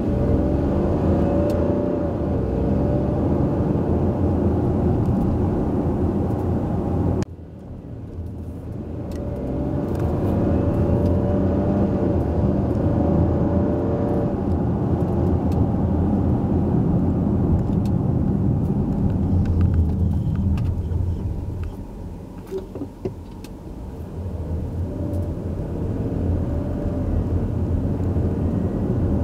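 Audi Q7 55 TFSI e's 3.0-litre petrol engine heard from inside the cabin, pulling hard away from a traffic light. There is a sudden drop in level about seven seconds in, then it builds again. It eases off briefly about three quarters of the way through and picks up once more.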